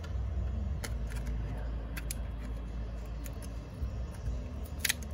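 Small sharp clicks and taps from handling laptop RAM modules in an opened MacBook Pro, the loudest a double click near the end, over a low steady hum.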